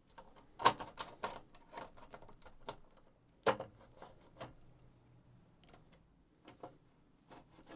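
Irregular sharp clicks and taps of small parts and a hand tool being handled while a boombox's cassette mechanism and earthing strap are fitted. The loudest come under a second in and again about three and a half seconds in.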